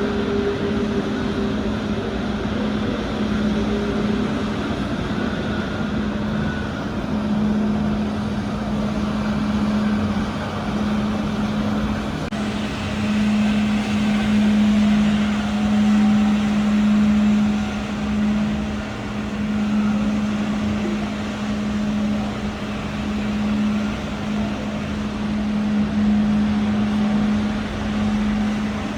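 Airbus A380 jet engines running at idle while taxiing: a steady drone with a constant low hum and a broad rushing noise.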